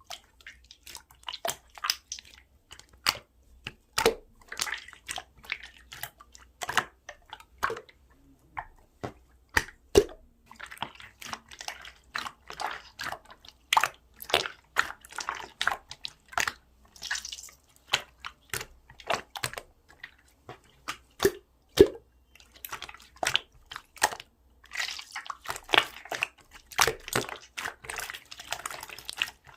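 Pearl slime squeezed and worked by hand, giving many sharp clicks and pops of trapped air with wetter squishing between them, in irregular clusters.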